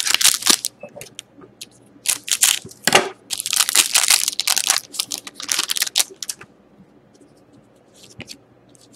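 Foil wrapper of a 2013-14 Upper Deck SP Game Used hockey card pack being torn open by hand, in several ripping, crinkling bursts over roughly the first six seconds.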